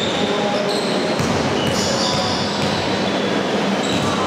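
Sports shoes squeaking again and again on an indoor court floor as players move, over a steady din of crowd and hall noise.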